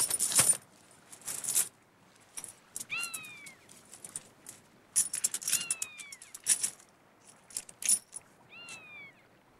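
Coins clinking and jingling inside a wet overcoat weighted down with pennies and halfpennies as it is lifted and handled. A gull cries three times, each a short call that falls in pitch.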